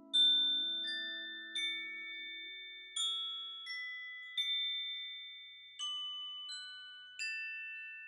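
Gentle instrumental music: clear bell-like notes struck in groups of three, each ringing on and slowly fading, over a low tone that dies away in the first couple of seconds.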